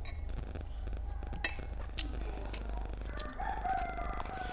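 Slurping and chewing of rice vermicelli noodles, with sharp clicks, over a low steady hum; a little past three seconds in, a rooster crows in the background, one long call.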